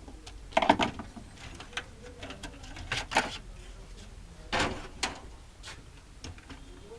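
Handling noise from working on a laser printer: a few separate knocks, clicks and scrapes of plastic and metal parts, the loudest about half a second in and others around three and four and a half seconds in.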